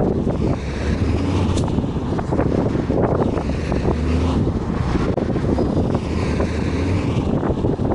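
A bus running on the road: a steady low engine and road rumble, with wind buffeting the microphone.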